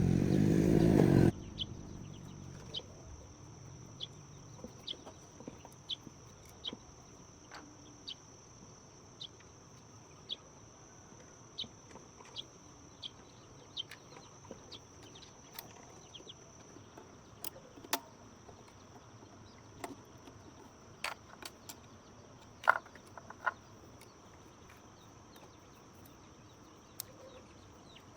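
Steady high-pitched drone of insects, with scattered sharp clicks and taps at irregular intervals. In the first second or so a loud low rumble swells and then cuts off abruptly.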